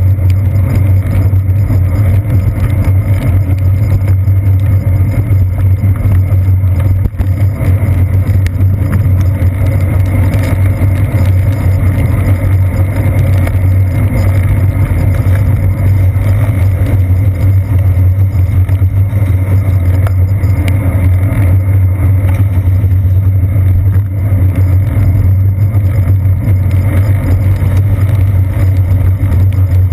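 Loud, steady low rumble of a bicycle riding over wet pavement, picked up through a seat-post-mounted GoPro Hero 2: road vibration and tyre noise carried up through the mount.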